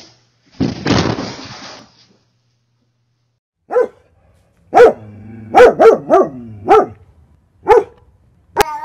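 A dog barking: about seven short, high barks spread over four seconds, starting about four seconds in, some in quick pairs. A brief noisy rush comes about a second in.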